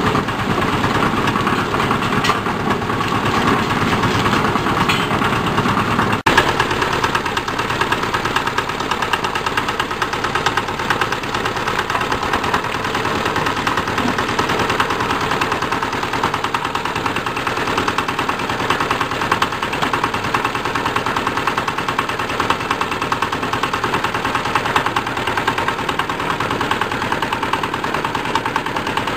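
Small diesel engine running steadily with a rapid, even knocking beat. It is driving a tuber-washing machine's rotating brush drum through a gearbox and chain.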